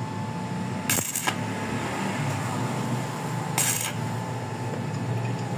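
Metal-on-metal clinking against a steady hum, with two short, sharp, bright bursts, one about a second in and one just past the middle.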